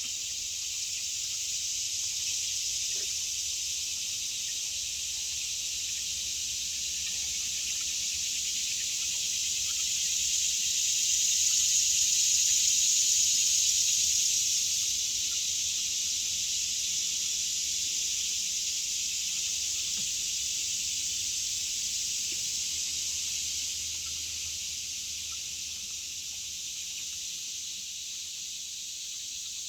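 Steady high-pitched hiss of an outdoor insect chorus, swelling about a third of the way in and easing off near the end.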